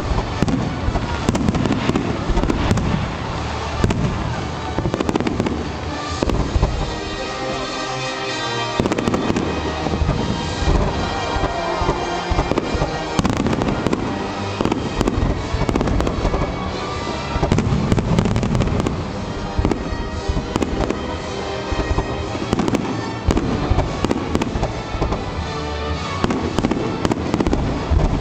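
A fireworks display: a dense run of sharp bangs and crackling shell bursts, with music playing alongside.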